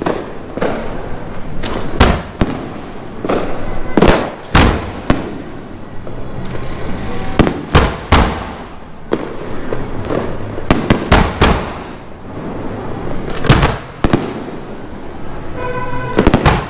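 Fireworks and firecrackers going off all around. Loud sharp bangs come at irregular intervals, some in quick clusters of two or three, over a constant background crackle.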